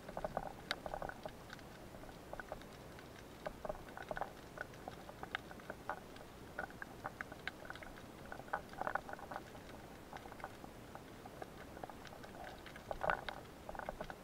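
Underwater clicking and crackling heard through a submerged camera, coming in irregular clusters of short clicks.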